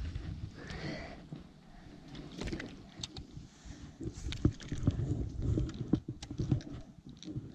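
Low rumble of wind and water noise, with scattered light knocks and clicks from about two seconds in as a small bass is handled and unhooked.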